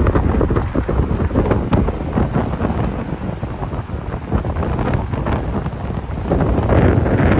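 Strong wind buffeting the microphone: a loud, gusting low rumble that swells about six seconds in.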